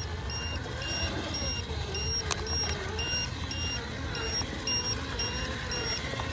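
Low-voltage battery alarm beeping about twice a second in two tones together, over the whine of the Rlaarlo MK-07 1/7-scale RC crawler's brushed motor and drivetrain rising and falling as it climbs in all-wheel drive with the front diff locked. One sharp click a little over two seconds in. The beeping is the sign of a low battery.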